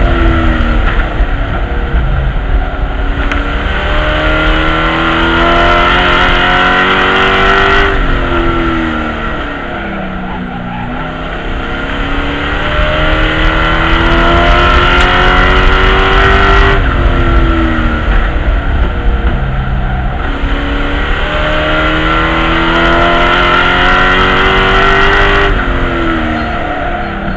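Race truck's V8 engine heard from inside the cockpit, lapping an oval. Its pitch climbs steadily for several seconds down each straight, then drops sharply as the driver lifts for the corner, about every eight and a half seconds.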